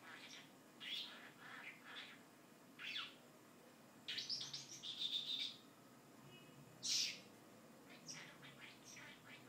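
Pet bird chirping in short high calls, with a longer run of chattering about four seconds in and one loud call near the seventh second.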